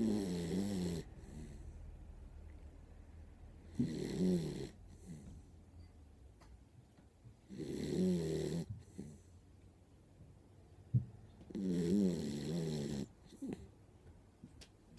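Miniature dachshund snoring in its sleep: four snores about four seconds apart, each lasting around a second and wavering in pitch, with quieter breathing between them.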